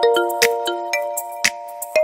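Background music: a light melody of held notes that step up and down, over sharp clicking percussion.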